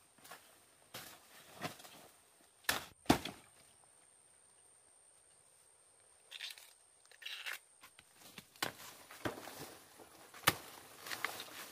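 Scattered knocks and clicks, the loudest two close together about three seconds in, then a lull of a few seconds before more knocks follow.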